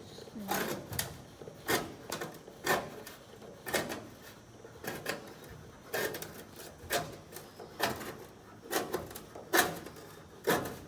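Repeated knocks and rubbing from an aluminium caravan wall panel being worked and pushed loose, about one sharp knock a second.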